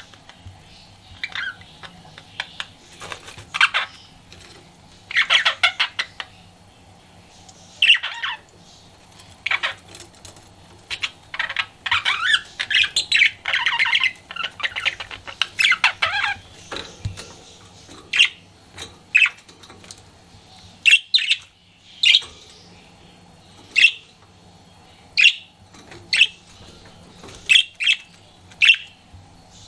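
Pet budgerigar chattering and squawking in short high calls, with a dense run of warbling chatter in the middle and then single sharp chirps about every second and a half.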